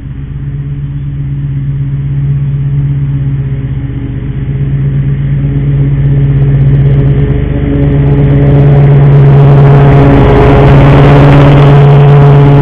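Hustler Surfer Pro 34 stand-on mower's Kawasaki FS541V engine running steadily while the mower cuts grass, growing louder as it approaches; the rush of the cutting deck and thrown grass builds over the last few seconds.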